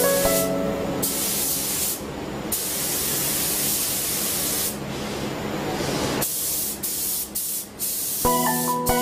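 DeVilbiss LUNA2i hand spray gun with a 255 wide-pattern air cap, spraying colour-clear coat at 0.15 MPa atomizing air: a steady hiss of air and paint mist, eased off briefly twice between passes. Near the end the trigger is released, leaving only a few short puffs of air.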